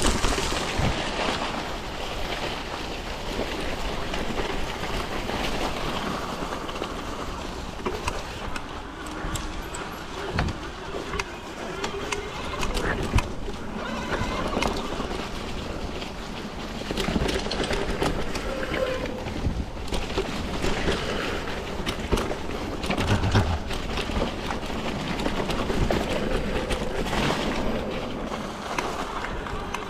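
Electric mountain bike riding on a dirt trail: a continuous rush of wind and tyre noise, with frequent rattles and knocks and a faint wavering whine.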